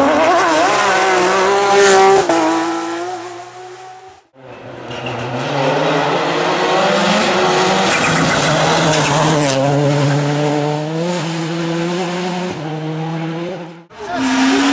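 A Porsche 911 rally car's engine at full throttle, shifting up and then fading as the car goes away. After a sudden cut about four seconds in, a Ford Focus WRC's engine revs hard, its pitch rising and falling through gear changes, until another abrupt cut near the end.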